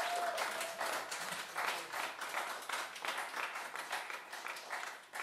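Audience applauding, many hands clapping at once, as the tune ends.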